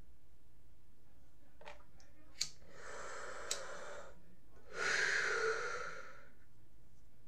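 A hand-held lighter clicked several times as it is struck, with a drawn breath in while the flame is held to the mouth. This is followed by a longer, louder breath out, as when lighting up and exhaling smoke.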